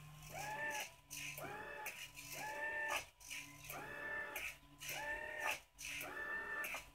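Linear actuator's motor whining in six short runs of under a second each, about a second apart, its pitch rising as each run starts and falling as it stops, with clicks as the servo-driven micro-switches switch it. A faint steady hum runs underneath.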